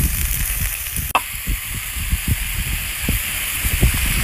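Pieces of lamb sizzling on a hot steel griddle over charcoal: a steady frying hiss, with irregular low bumps underneath and a brief break about a second in.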